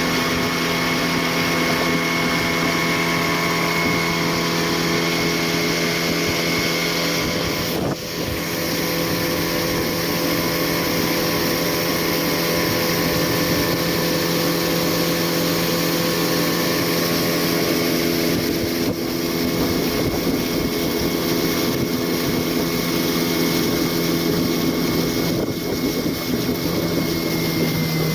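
Small boat's outboard motor running steadily at constant speed, its engine note holding one even pitch, with rushing wind and water noise.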